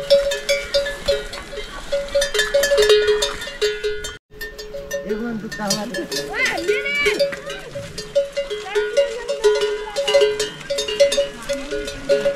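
Livestock bells on a herd of animals clanking in a steady, repeating two-note pattern, with a brief break about four seconds in.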